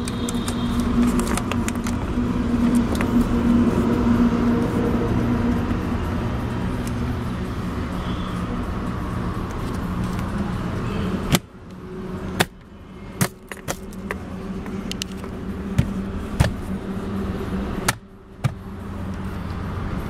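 Steady hum of a running car engine for about the first eleven seconds. It then falls away, and a series of sharp clicks and knocks follows.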